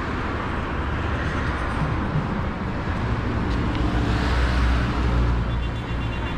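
Road traffic on the adjacent road: a steady rumble and tyre hiss, with a vehicle passing close by and loudest about four to five seconds in.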